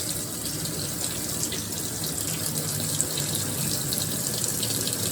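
Water running steadily into the tub of a GE top-load washing machine as it fills, the lid lock bypassed so the water flows with the lid open.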